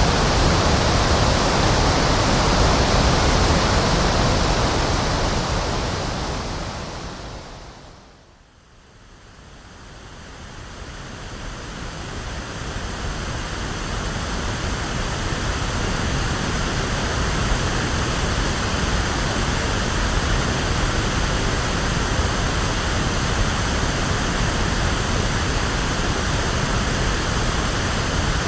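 Electronically generated pink noise: a steady, even hiss with a full low end, like a mix of the sea and TV static. It fades down to quiet about eight seconds in, then fades back up over the next several seconds and holds steady again.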